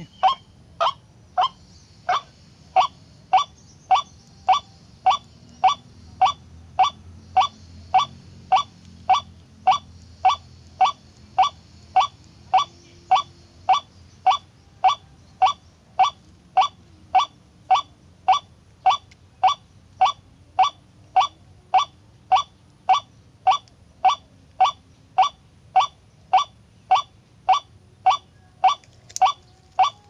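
White-breasted waterhen calling: a long, even run of short, sharp "kwak" notes, about one and a half a second.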